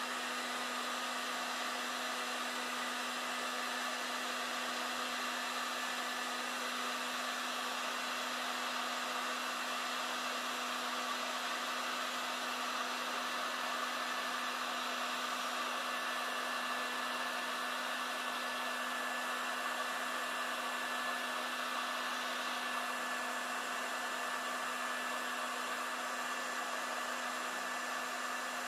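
Heat gun running steadily, blowing hot air over wet epoxy resin to push it into a wave: an even rush of air with a steady low hum.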